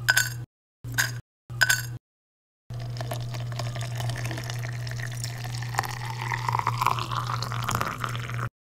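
Three short rattles as spoonfuls of loose tea leaves drop into a stainless steel infuser. Then water is poured into the mug for about six seconds, its pitch rising as the mug fills, and it cuts off suddenly.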